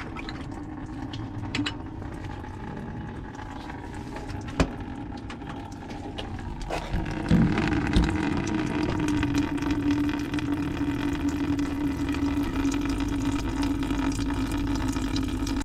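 Engine fluids draining from a truck into a drain pan: a steady pouring, splashing stream that gets louder about seven seconds in, with a couple of single knocks.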